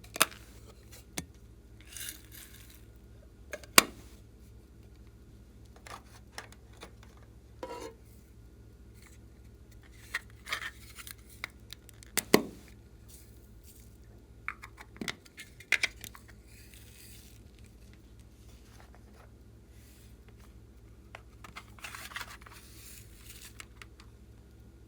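Slime being handled and mixed by hand with small items: scattered sharp clicks and pops, the loudest near the start, about four seconds in and about halfway, with a few short crinkly rustles between them.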